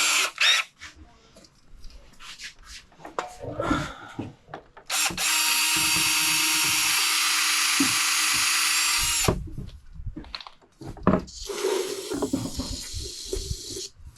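A handheld power tool runs at a steady speed for about four seconds, stops, then runs again for about two seconds near the end. Short clicks and knocks of parts being handled come before it.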